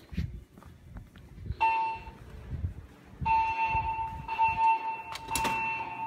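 Fire alarm evacuation signal from the speakers of a Siemens MXL-V voice-evacuation system: a short electronic tone about a second and a half in, then a steady tone from about three seconds on. Footsteps are heard at first, and there is a sharp knock near the end.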